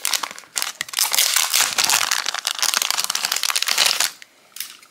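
Clear plastic packaging bag crinkling as hands open it and slide out a small plastic case: a dense run of crackles that stops about four seconds in.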